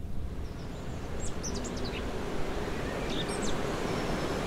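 Birds chirping in two short bursts, about a second in and again about three seconds in, over a steady low rumble of wind noise on the microphone.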